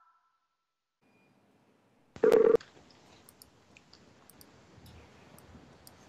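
A single short telephone-call tone, about half a second long, some two seconds in. It is followed by a faint open phone line, a low hiss with small scattered clicks.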